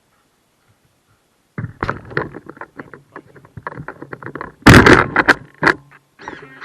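A toy RC car clattering and knocking during a dog's chase, starting about a second and a half in as a run of irregular rattles and knocks. About five seconds in come several very loud, sharp bangs.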